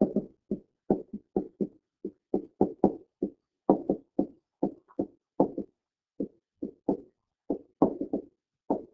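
A stylus knocking on a tablet screen during handwriting: a quick, uneven run of short, dull taps, about two or three a second, as the pen strikes the surface stroke by stroke.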